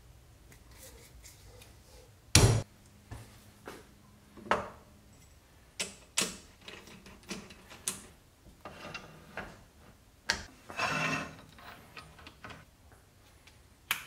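Workshop handling sounds of a maple log being mounted on a mini wood lathe: a loud knock about two seconds in, then scattered metal clicks and knocks from the chuck, chuck key and tailstock, with a short scraping rattle near the end.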